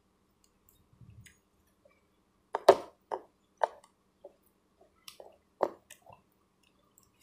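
Close-up chewing of a mouthful of fresh strawberries: a run of short, wet smacking sounds about every half second, the loudest about two and a half seconds in.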